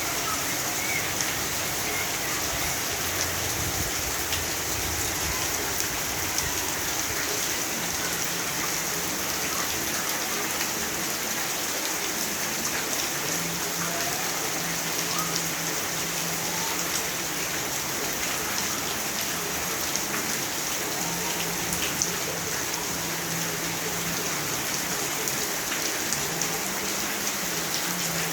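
Steady rainfall, an even hiss of rain with many small drop impacts.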